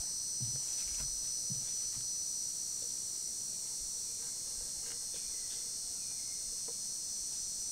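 Steady high-pitched chorus of insects chirring without a break.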